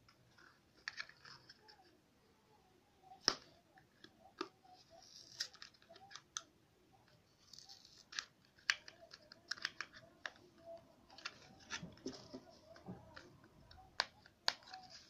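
Small cardboard contact-lens carton handled and opened by hand: scattered light clicks and taps of card and fingers, with a few brief papery rustles.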